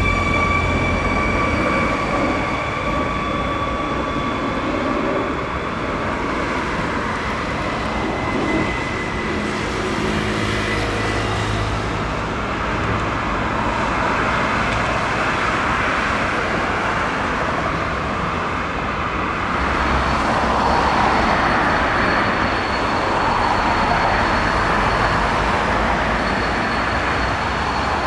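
A train running through a station, with a steady rolling and rumbling noise throughout. A high whine fades away over the first few seconds. The noise swells from about twenty seconds in, joined by a thin high steady tone.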